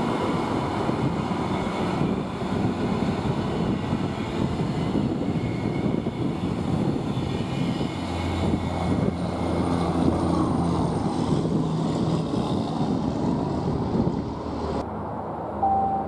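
Queensland Rail NGR electric multiple-unit train running along the platform past the microphone: a steady rumble with several high-pitched whines over it. The sound cuts off suddenly near the end.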